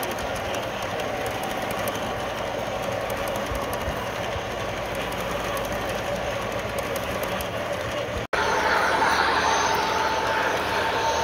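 G scale model freight train rolling past on garden-railway track, its wheels clicking over rail joints and switches. After a sudden cut about eight seconds in, the running gets louder and a steady whine comes in as a model diesel locomotive passes.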